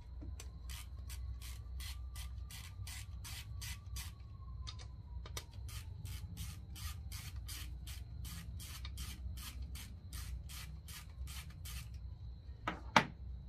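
Quarter-inch ratchet working in quick, even strokes, about three a second, backing out the 10 mm rocker-holder bolts on the cylinder head. The strokes stop a couple of seconds before the end, and a single sharp click follows.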